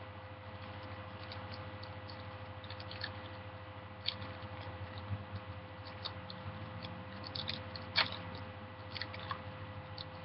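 Faint crinkling and scattered small clicks of a Magic: The Gathering booster pack wrapper being handled and opened, with a sharper crackle about 4 s and 8 s in, over a steady electrical hum.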